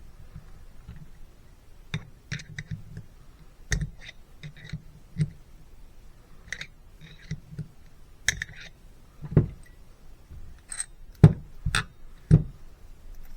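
Irregular clicks and knocks of a small hand tool and metal carburetor parts being handled, with a few sharper knocks near the end.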